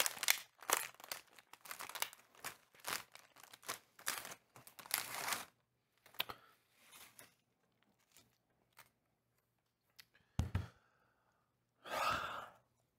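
Plastic candy pouch of Airheads Extremes being torn open and crinkled: dense crackling and tearing for about the first five seconds, then scattered small rustles. A thump about ten and a half seconds in, and a short rustling burst near the end.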